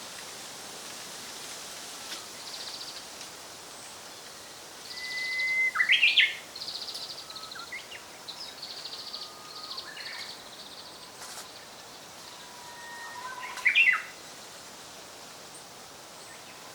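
Japanese robin singing: two loud phrases, each a held whistled note followed by a fast rattling trill, the first about five seconds in and the second near the end. Fainter buzzy calls from other birds sound in between over a steady hiss.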